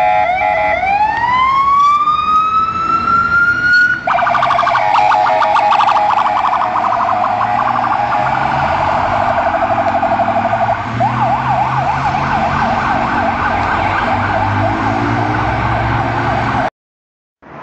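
Fire engine sirens: one winds up in a long rising wail, then after an abrupt change a fast warbling siren takes over, switching about eleven seconds in to a rapid yelp of quick repeated sweeps, over a low engine drone. The sound cuts off suddenly near the end.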